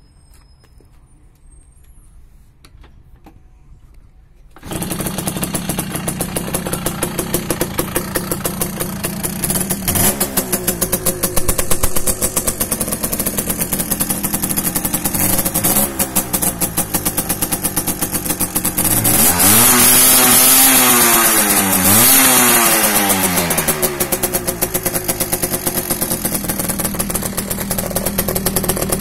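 Tuned Romet Komar moped's 50cc two-stroke engine with an expansion-chamber exhaust: it bursts into running about four and a half seconds in and runs at a fast, even idle, with a couple of short throttle blips and then two revs that rise and fall in pitch, one after the other, before settling back to idle.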